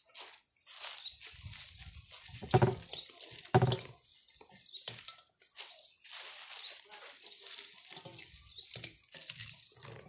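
Dry, soil-caked groundnut (peanut) plants rustling and crackling as pods are plucked off by hand, with two louder thumps about two and a half and three and a half seconds in.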